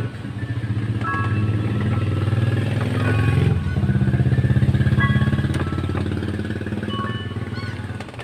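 An engine running with a low pulsing drone that changes pitch about three and a half seconds in and fades near the end.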